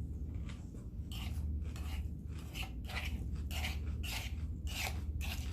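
Close-up chewing of crisp Caesar salad, with short crunches about twice a second over a steady low hum.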